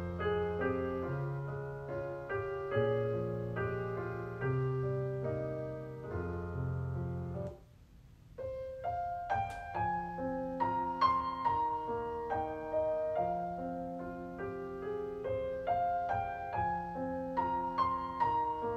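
Background piano music: a gentle piano piece of held chords over low bass notes. It breaks off briefly about halfway through, then resumes with crisper, more clearly struck notes.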